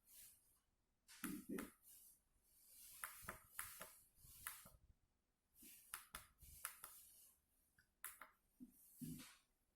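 Faint, irregular clicks and short soft rustles, like hands working small parts close to the microphone, over near silence.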